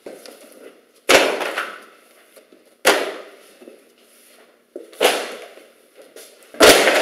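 Four sharp, loud crashes about two seconds apart, each dying away over about a second: books being pulled off bookshelves and falling to the floor.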